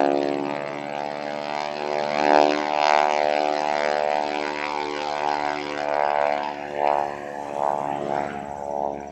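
Crop-duster airplane flying low past, its engine and propeller making a steady pitched hum that swells louder about two seconds in and again near seven seconds.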